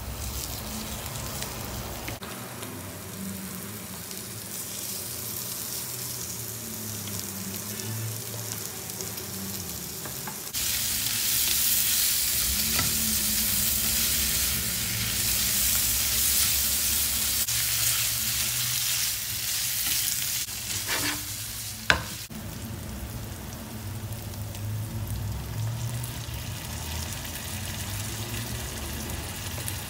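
Ground pork frying in a non-stick pan with onions and spices, sizzling steadily as it is stirred and broken up with a spatula. The sizzle grows louder about a third of the way in, and there is one sharp knock about two-thirds of the way through.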